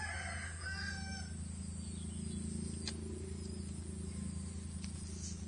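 A rooster crowing, the call ending a little over a second in, over a steady low hum.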